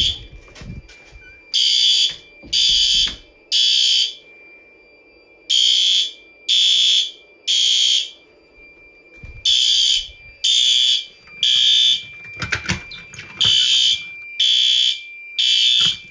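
System Sensor P2R fire alarm horn sounding in the temporal-three evacuation pattern: three sharp high-pitched blasts a second apart, then a pause, repeating four times. A faint steady high tone runs underneath, and there is a brief clatter about twelve seconds in.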